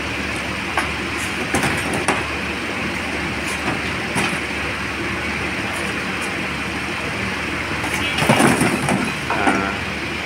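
Burnt lime being raked out of the base of a lime kiln with a long iron rod: scattered knocks and clatter of lumps over a steady rushing noise, with a louder rush of falling lime about eight seconds in.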